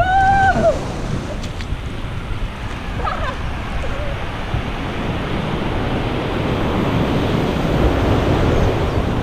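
Ocean surf breaking and washing up the beach, with wind buffeting the microphone; the wash swells louder in the last few seconds. A short shout rings out right at the start.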